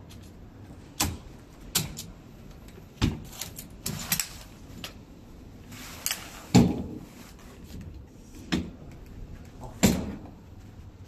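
A lightweight buggy stroller's frame locks and folding joints clicking and clunking as it is unlocked and collapsed: a string of sharp clicks and knocks, a few close together about a third of the way in, the loudest a little past halfway.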